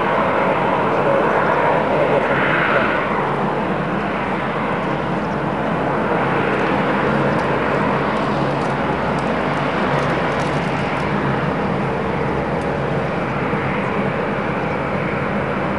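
Jet airliner engines running with a steady, even noise.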